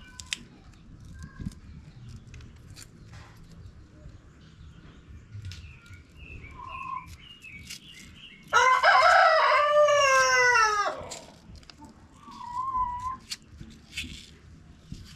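A rooster crows once, a single loud call lasting about two seconds that drops in pitch at the end. Faint bird chirps and light clicks sound around it.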